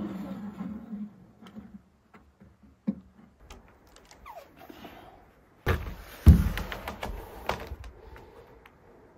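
Wooden knocks and thuds on a peeled-log ridge beam as it is worked level with shims: a sharp knock about three seconds in, then a run of knocks from just before the middle, with the loudest heavy thump about six seconds in.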